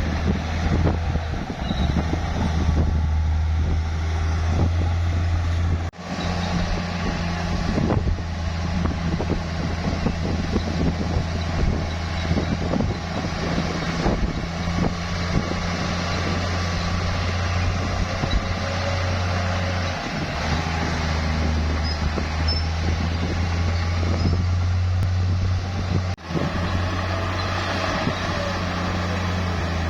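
Heavy bulldozer's diesel engine running steadily with a deep drone. The sound breaks off abruptly for a moment twice, about six seconds in and again near the end.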